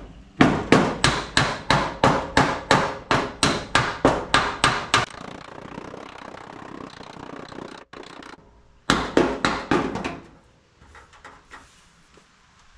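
Hammer blows on the sheet-metal body of a 1979 Ford F250, knocking out a large dent. A steady run of blows, about three a second, goes on for some five seconds; then, after a pause, comes a second, quicker run of about half a dozen blows.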